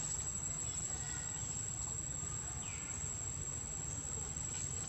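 Steady high-pitched drone of insects, over a low background rumble, with one short falling chirp about two and a half seconds in.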